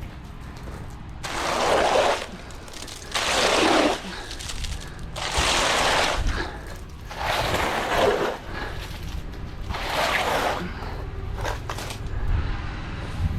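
Wet concrete being poured and worked, with five rough scraping, sloshing strokes about two seconds apart over a low engine rumble.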